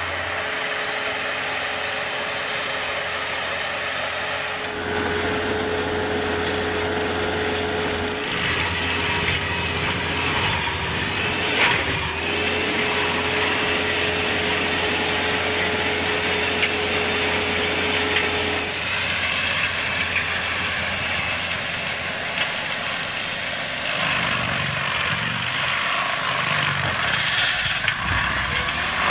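Antonio Carraro SRH 9800 tractor running under load while its PTO-driven mera forestry mulcher shreds brush and saplings. A steady high whine holds through the middle part of the stretch.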